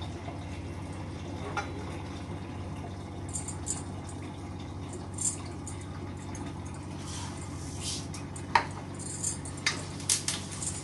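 Metal kitchen utensils and cookware clinking and clattering now and then over a steady low hum: a sharp clink about eight and a half seconds in, and several more in quick succession near the end.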